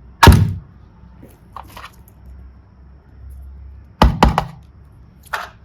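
Sharp knocks of hard objects: one loud knock just after the start, a quick run of three or four about four seconds in, and a lighter one near the end.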